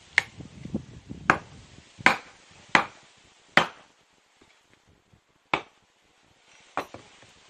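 Kindling wood being chopped: seven sharp strikes at uneven spacing, five close together and then two more after a short pause.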